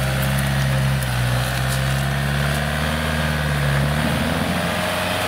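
Opel Frontera Sport's 2.2 DTi diesel engine running at steady revs as the SUV crawls through swampy ground, its note shifting about four seconds in.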